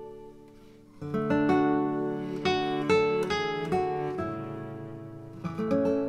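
Background music on strummed acoustic guitar. It dips low near the start, then comes in fuller with strummed chords about a second in.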